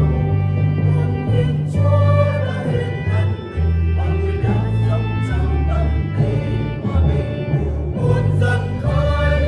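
A church choir singing a Vietnamese hymn over an instrumental accompaniment, with held bass notes that change every half second to a second.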